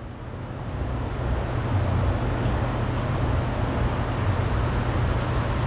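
Steady low rumble with an even hiss, fading in over the first couple of seconds, like outdoor background noise from road traffic.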